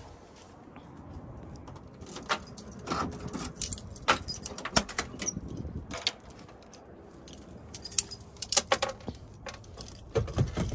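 Keys jangling and small hard objects clinking and clattering as they are handled, in two bursts of activity: one from about two to six seconds in and another near the end.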